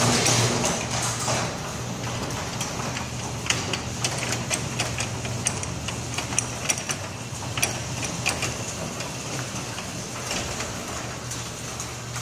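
LiftMaster chain-drive commercial garage door opener running as it lowers the door: a steady motor hum with scattered clicks and rattles from the moving door.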